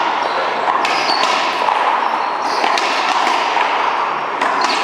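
Racquetball rally: several sharp smacks of the ball off racquets and the wall, with short high sneaker squeaks on the court floor, over a steady hall background noise.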